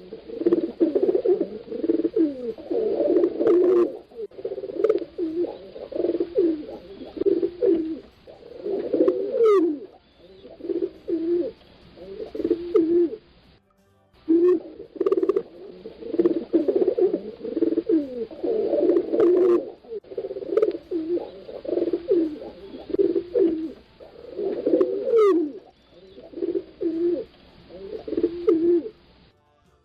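Several pigeons cooing, their low, throaty coos overlapping almost continuously, with a brief silent break about halfway through.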